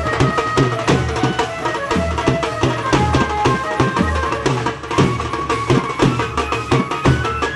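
Procession band drummers beating large double-headed bass drums and side drums with sticks in a fast, dense, driving rhythm, loud and close. A melody line is held over the drumming.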